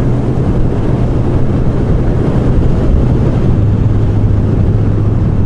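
Kawasaki Z900 inline-four motorcycle running at steady road speed, its engine hum under loud wind and road noise from the rider's position. The engine note drops slightly about three and a half seconds in.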